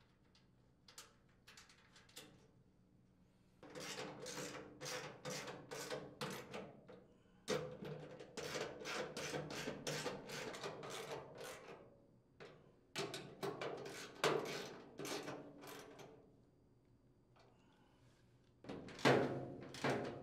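Socket wrench ratcheting as it tightens mounting nuts on a sheet-metal hopper housing: several runs of rapid clicks with short pauses between.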